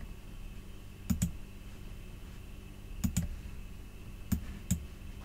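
Clicking at a computer: three pairs of quick clicks about a second and a half apart, over a faint steady hum.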